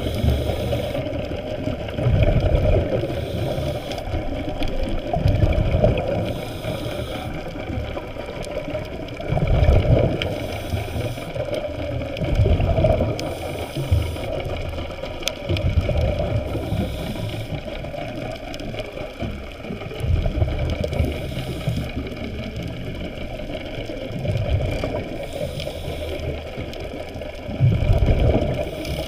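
Underwater sound picked up by a camera in a waterproof housing: a steady muffled hum with low whooshing surges every few seconds as the camera moves through the water.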